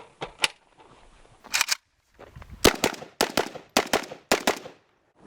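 Semi-automatic rifle fire: about a dozen sharp shots in quick, irregular groups, cutting off abruptly shortly before the end.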